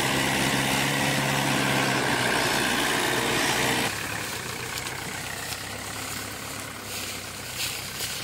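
Mahindra 575 DI tractor's four-cylinder diesel engine running steadily under heavy load, pulling a trolley stacked with sugarcane. About four seconds in, the sound cuts to the engine running more quietly, with a couple of sharp clicks.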